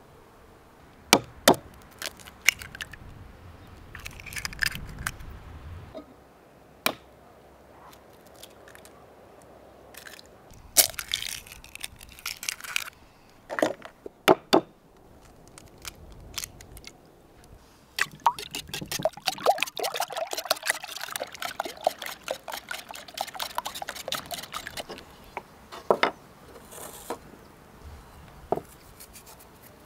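Eggs cracked against a glazed clay bowl and dropped in, with a few sharp cracks, then a wire whisk beating them in the clay bowl: rapid clinking and tapping for about ten seconds in the second half.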